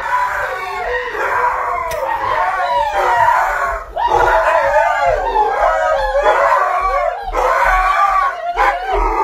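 Dog howling loudly in long, wavering cries whose pitch slides up and down, with short breaks about four seconds in, near seven seconds and near the end.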